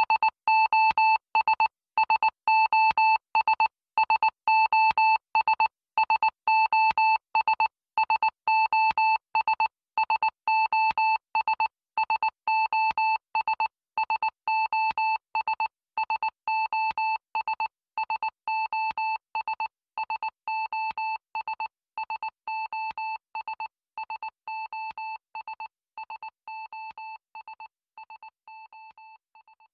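Electronic background music: a single high synthesizer note repeated in a quick staccato pattern, fading out gradually toward the end.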